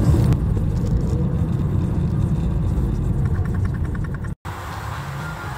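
Low engine and road rumble heard inside a moving car's cabin, cutting off abruptly about four seconds in.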